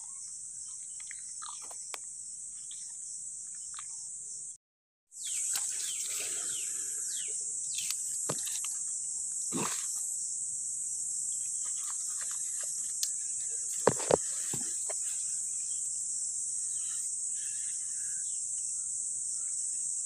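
Steady high-pitched insect chorus, with scattered small clicks and rustles of handling in the grass and two sharp knocks about two-thirds of the way through. The sound cuts out completely for half a second a little under five seconds in.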